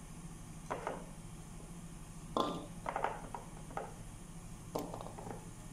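Whole shallots dropped one by one into a wok, each landing with a short knock against the metal, about six knocks at uneven intervals over a faint steady hum.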